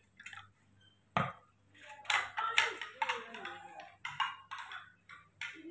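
A spoon knocks once against a glass about a second in. From about two seconds on, a baby monkey gives a string of short squealing calls that bend up and down in pitch.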